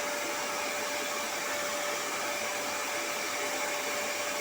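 Vacuum cleaner running steadily: an even rushing hiss with a steady whine.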